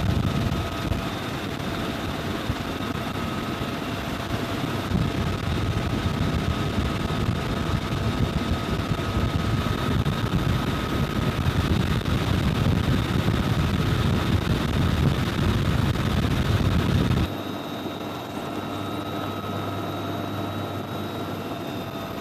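Twin-turbine UH-1Y Venom helicopter in flight, heard from inside the open cabin door: a loud, steady wash of rotor and engine noise with a constant high whine. About 17 seconds in, it drops abruptly to a quieter, lower steady run.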